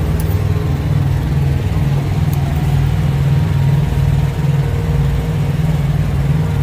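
Auxiliary power units running on parked semi-trucks: a steady, loud low engine drone with an even pulse.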